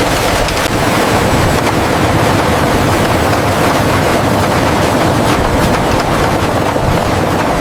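Wool-processing machinery running with a loud, steady mechanical clatter.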